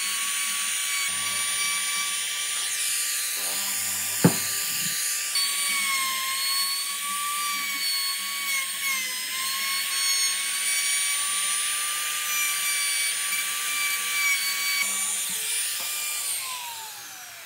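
Compact trim router running with a steady high whine as its bit cuts a slot into a solid wood bar, the pitch sagging slightly under load. There is a single sharp knock about four seconds in. Near the end the router is switched off and its whine falls in pitch as it spins down.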